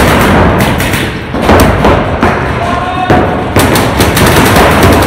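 Paintball markers firing in quick strings of shots in a reverberant indoor arena, with thuds among them; a burst starts near the beginning, another about a second and a half in, and a longer string from about three and a half seconds.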